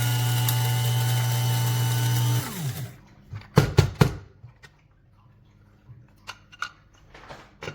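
Small electric grinder running steadily at high speed, grinding thyme, rosemary and salt. It switches off about two and a half seconds in and winds down with falling pitch. About a second later come three sharp knocks, then faint small clicks.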